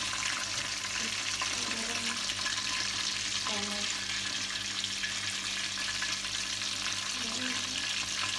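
Chicken nuggets frying in hot oil: a steady sizzling hiss.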